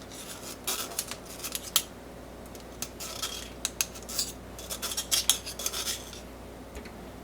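Metal kitchen utensils clinking and scraping against cookware in quick, irregular clusters of clicks and scrapes.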